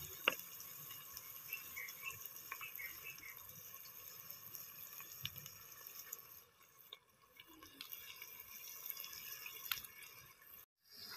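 Faint sizzle from a pot of onions frying in ghee over an open wood fire, with scattered small crackles and ticks.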